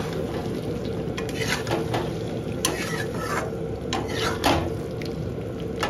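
Masala gravy frying in a pan, stirred with a spoon that knocks and scrapes against the pan a few times over a steady sizzle.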